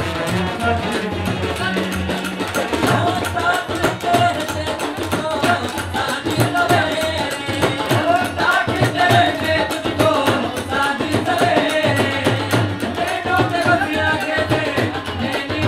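Live Indian band playing a Bollywood song: drums keep a driving beat under a wavering sung melody, with brass and harmonium.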